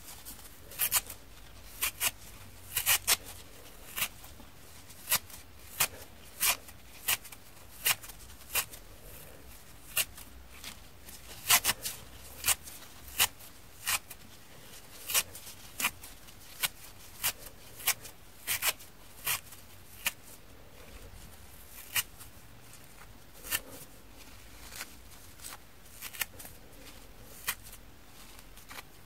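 Scouring-pad fibres of kitchen sponges being torn apart by hand: short, crisp rips, irregular, about one or two a second.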